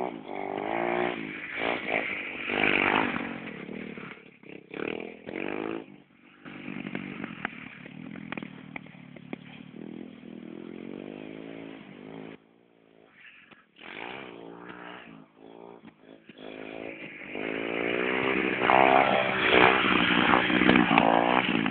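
Dirt bike engine revving up and down repeatedly as it rides the track, the pitch rising and falling with each throttle and shift. Loud at first, it fades almost away as the bike goes far off a little after the middle, then grows steadily louder and is loudest near the end as the bike comes close.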